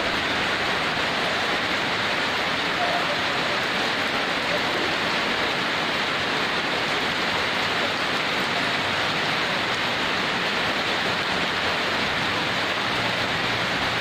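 Heavy rain falling steadily: an even, unbroken hiss of rainfall on leaves and ground.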